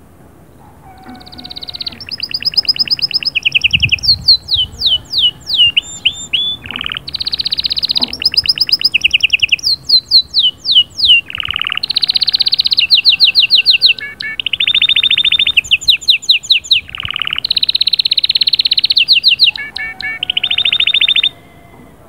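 Domestic canary singing a long, unbroken song of fast trills and rolls, each phrase a rapid run of one repeated note, some notes sweeping down in pitch. It starts about a second in and stops abruptly near the end.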